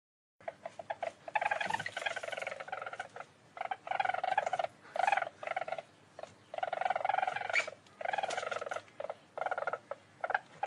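Least weasel chattering: rapid trilled calls in short bursts of up to about a second, separated by brief pauses and a few clicks.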